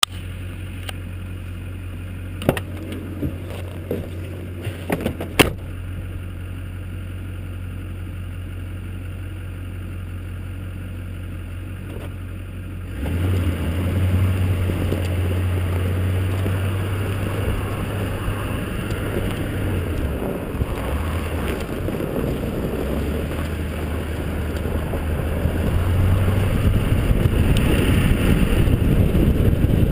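2002 Chevrolet Silverado's 6.6-litre Duramax V8 turbo-diesel idling with a steady low hum, with a few sharp clicks and knocks as the side-mounted camera is handled. About 13 seconds in the truck pulls away, and road and wind noise on the snowy track rise over the engine, louder again near the end.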